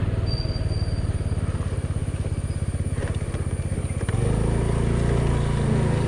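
Honda Activa 125 scooter's single-cylinder four-stroke engine running while riding, with a fast, even low pulsing. About four seconds in, the sound becomes steadier and slightly louder.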